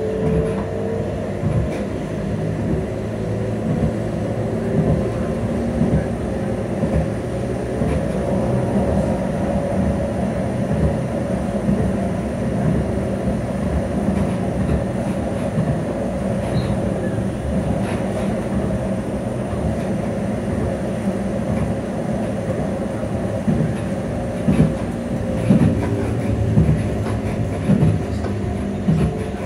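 Tram running, heard from inside the passenger saloon: a steady rumble of wheels on rail, with a motor whine that rises in pitch at the start and then holds steady. A few sharp knocks come near the end.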